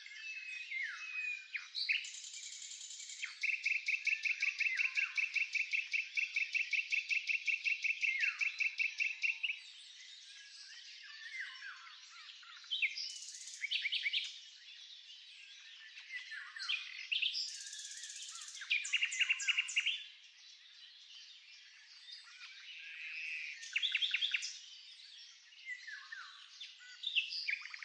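Oriental magpie-robin (kacer) singing a long, varied song of whistled phrases, including a run of fast, evenly repeated notes lasting about six seconds and several shorter trills.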